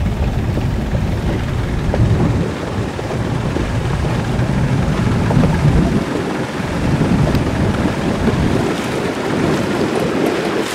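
Speedboat under way: heavy wind buffeting the microphone over the rush of water along the hull, a dense, fluctuating rumble. The deepest part of the rumble eases about six seconds in.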